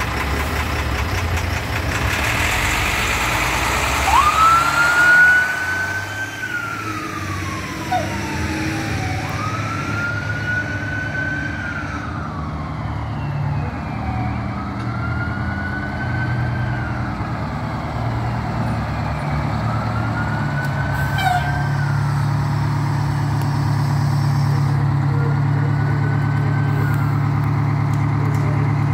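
A fire truck siren wails, each cycle rising quickly, holding and then sliding slowly down, about every four seconds, growing fainter as it moves away. Underneath, a fire engine's diesel idles close by and grows louder near the end.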